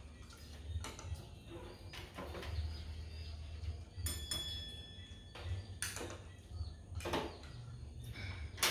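Chopsticks clicking against small porcelain rice bowls during a meal: scattered light clicks, with a brief ringing clink of china about four seconds in, over a low steady rumble.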